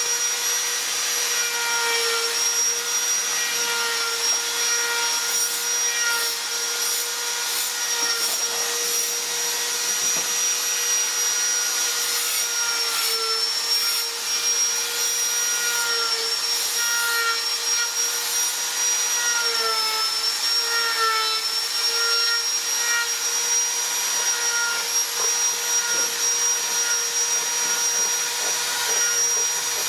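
Handheld electric angle grinder running steadily with a high whine, grinding and sanding into carved wood. Its pitch sags briefly a few times as it is pressed into the work.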